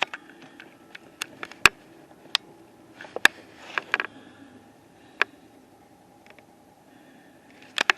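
Irregular sharp clicks and taps close to the microphone, typical of handling the recording device, over a faint steady hum; the loudest clicks come about one and a half and three seconds in, with a quick pair near the end.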